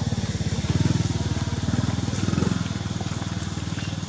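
A small engine running, with a rapid, even low pulse that swells slightly about a second in and again past two seconds.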